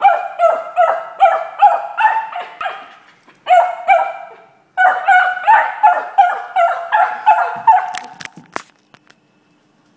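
Beagle barking in rapid runs of sharp barks, about three a second, with two short breaks, frustrated at a bottle stuck out of reach under a couch. The barking stops about eight seconds in, followed by a few knocks.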